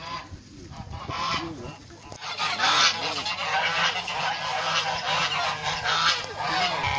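A flock of domestic geese honking, many short calls overlapping, getting busier and louder from about two seconds in.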